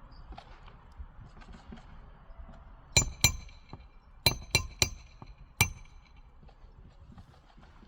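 Six hammer strikes on metal, each ringing briefly: two close together about three seconds in, then three quick ones just over a second later, and a last one near the middle.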